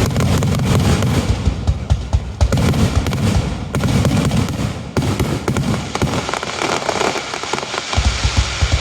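Fireworks display: a dense barrage of aerial shells bursting, booms and crackle overlapping. It eases off about six seconds in, then heavy booms return near the end.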